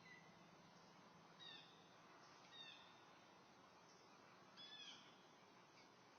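Faint bird calls over near silence: three short chirps with falling pitch, about a second and a half in, near the middle, and a double one later on.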